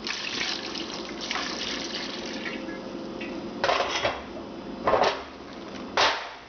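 Chardonnay poured into a frying pan of shrimp, splashing for the first few seconds, followed by three short louder sounds about a second apart.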